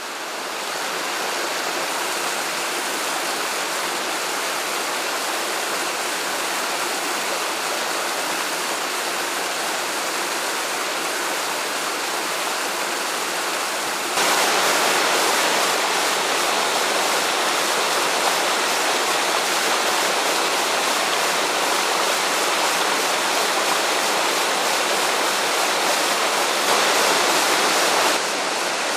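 Waterfall, a steady rushing of falling water. It fades in at the start, becomes clearly louder about halfway through and eases a little near the end.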